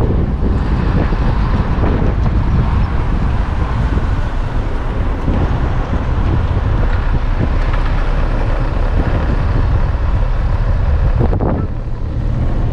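Car driving along a road, heard from inside: a steady low rumble of engine and tyres with wind noise, briefly dipping near the end.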